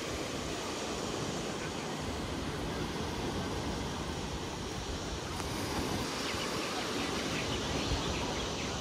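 Ocean surf washing against the shore with wind, a steady, even rush of noise.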